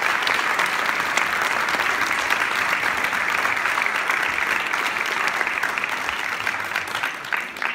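Audience applauding steadily, thinning out to a few last scattered claps near the end.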